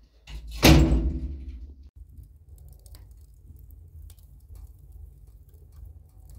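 A door is shut with a loud bang about half a second in, the clatter ringing on for about a second. After that comes a steady low rumble with faint crackling from the fire burning in a sheet-metal wood stove.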